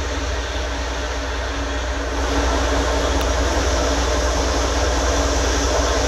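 High-pressure sewer jetting heard inside a storm drain culvert: a steady low rumble with a rushing hiss as the jetter hose works through the pipe and water flows along the bottom. The noise gets a little louder about two seconds in.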